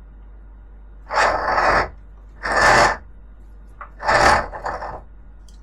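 A rope being pulled through, rubbing and scraping in three separate pulls, each under a second long.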